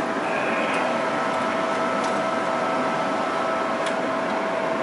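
Steady machine hum and whir with a constant tone. A few faint clicks, one under a second in and one about four seconds in, as a metal control-cabinet panel is put back on.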